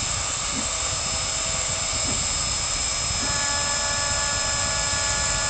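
CNC router's spindle running steadily as it engraves wood, a constant hiss with a steady high whine. About three seconds in, a cluster of steady tones joins.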